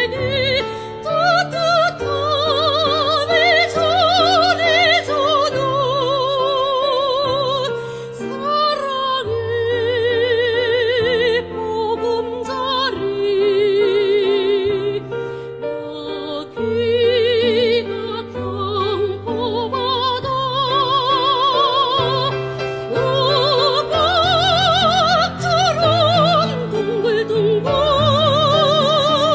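Soprano singing a Korean art song (gagok) in a classical operatic style with wide vibrato, over sustained instrumental accompaniment.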